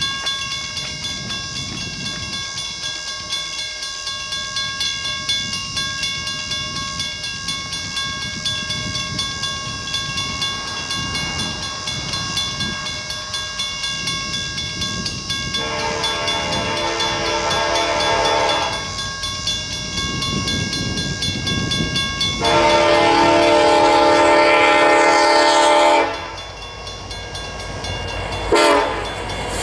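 Diesel freight train approaching with a low rumble that slowly grows louder, then the lead CN SD70M-2 locomotive's air horn: a long blast about halfway through, a second long blast, and a short blast just before the end, the long-long-short opening of a grade-crossing signal.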